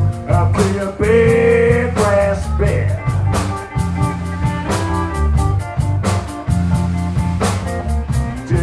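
Live blues band playing: electric bass and drums keep a steady groove under a lead instrumental line of long, held notes.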